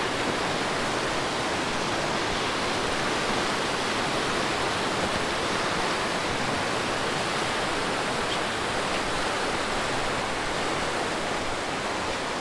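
Flowing river water rushing steadily, an even, unbroken wash of sound with no change in strength.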